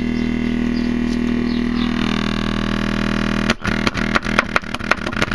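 Crescendo mid-bass speaker, its cone already stabbed and cut, driven hard with a 40 Hz test tone clipped at full amplitude: a loud, steady distorted buzz. About three and a half seconds in it breaks up into rapid stuttering crackles, then cuts off.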